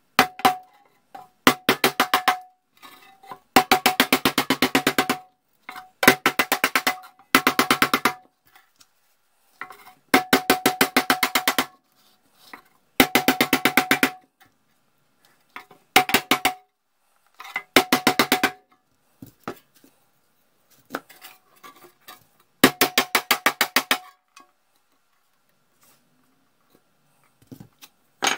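A mallet beating out a bent edge of a thin steel instrument cabinet in about ten quick runs of rapid light blows, each run ringing with a metallic note at one steady pitch, with short pauses between runs.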